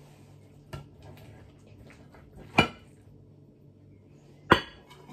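A metal serving spoon knocking against a dish as food is spooned out: three separate clinks, a faint one under a second in, then sharper ones about two and a half seconds in and near the end.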